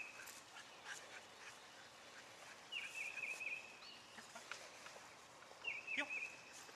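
A bird singing a short high phrase, a fluttering start that settles into a held note, repeated about every three seconds, with faint clicks and rustles between.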